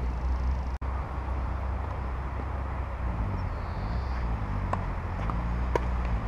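Tennis ball struck by rackets on an outdoor clay court: two sharp hits in the second half, the louder one just before the end, over a steady low rumble.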